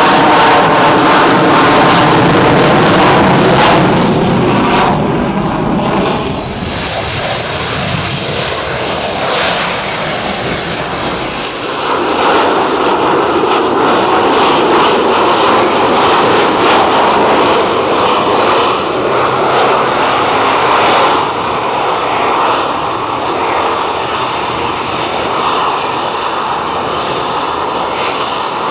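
Military jet aircraft flying a display pass overhead, its engine noise loud throughout. In the first few seconds the sound sweeps and phases as the jet passes. About twelve seconds in it settles into a steadier roar.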